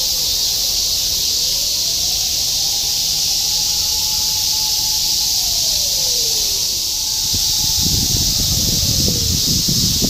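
Continuous chorus of cicadas, large brown cicadas among them, a steady high hiss. From about eight seconds a rough low rustling joins in.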